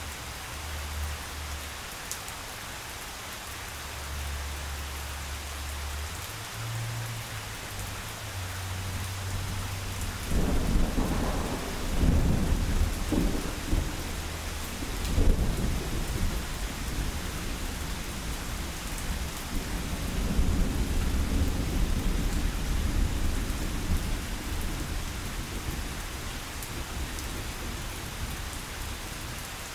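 Steady rain falling, with a roll of thunder that breaks in about a third of the way through, rumbles with several loud peaks for roughly ten seconds, then fades away.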